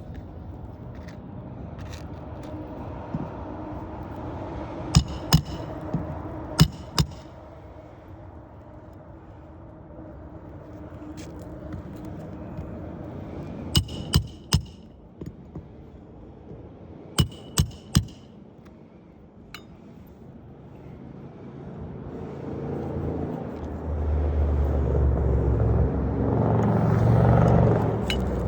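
Hammer driving roofing nails into asphalt shingles: sharp strikes in short groups of two to four, three groups in all. Near the end the low rumble of a passing vehicle builds up and becomes the loudest sound.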